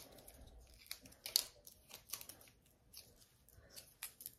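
Faint crinkling and a few light clicks as rennet tablets are handled and freed from their packaging, one sharper click about a second and a half in.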